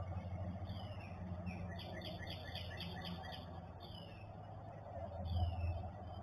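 Songbirds singing: repeated down-slurred whistles, with a quick run of about eight notes about two seconds in, over a steady low hum that swells near the end.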